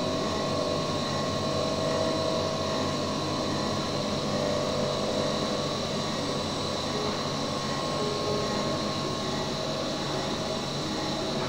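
A CNC roll-notching (rib-cutting) lathe running, with steady machine noise and several faint, steady whines.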